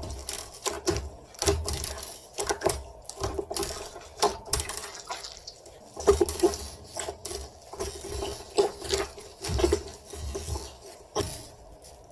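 Hands squishing, stretching and poking slime, giving a run of irregular wet clicks and sticky pops.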